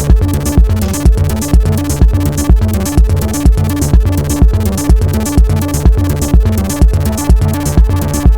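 Techno jam on a Roland TR-8 drum machine: a steady four-on-the-floor kick, about two beats a second, with hi-hats between the beats. Under it, a stepping synth bass line and pitched synth parts from a Behringer TD-3-MO and Arturia Minibrute 2s synthesizers.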